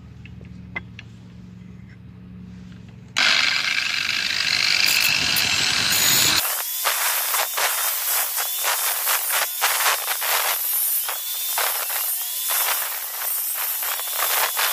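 DWT angle grinder started about three seconds in and briefly spinning free, then its cutting disc grinding a slot lengthwise into a metal ski-pole tube, a loud high-pitched grinding whose whine dips again and again as the disc bites.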